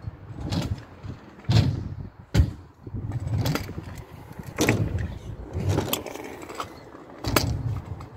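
Stunt scooter rolling over skatepark ramps and concrete: a rumble from its small hard wheels, broken by several sharp knocks and clacks as the wheels and deck hit the ramp edges and land.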